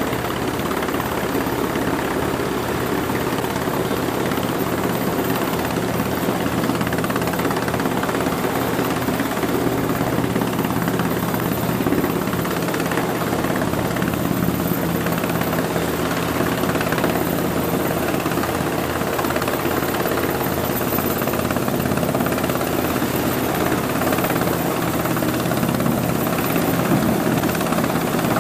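Sikorsky S-92 twin-turbine helicopter hovering close overhead: a loud, steady rotor and engine drone with a fast low pulsing from the rotor blades.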